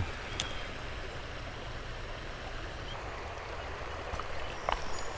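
Creek water flowing steadily, with a single short click about half a second in.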